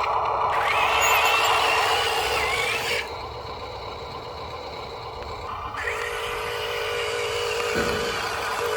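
Electric motor and plastic gearbox of a radio-controlled construction model whining, rising in pitch about half a second in and cutting off at about three seconds, then starting again near six seconds over a steady lower hum.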